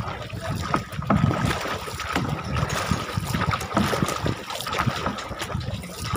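Wooden paddle strokes in lake water as a narrow wooden canoe is paddled along: irregular splashes and drips over a low wind rumble on the microphone, with a faint steady high tone in the background.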